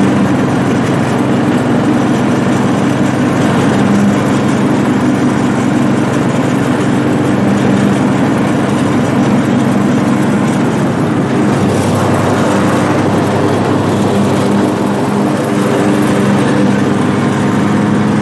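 Craftsman T100 riding lawn tractor running with its throttle up and blades engaged, cutting grass: a steady engine drone with the whir of the mower deck.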